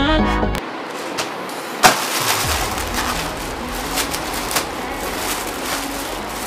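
A few notes of electronic music that stop about half a second in. Then a polythene courier mailer and the plastic wrap inside it are torn open and crinkled by hand: continuous crackling rustles, with one sharp snap just under two seconds in.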